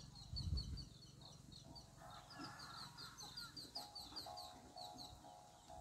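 Faint bird chirping: a quick run of short, high, falling chirps, about four a second, with a few soft chicken clucks a couple of seconds in.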